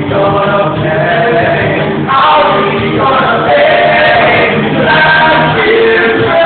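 A group of voices singing together over music, loud and continuous: a musical-theatre ensemble in full song.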